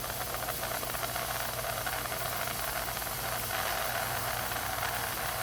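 Small homemade steam engine built from scrap metal, hissing steadily with steam and a fast, light rattle.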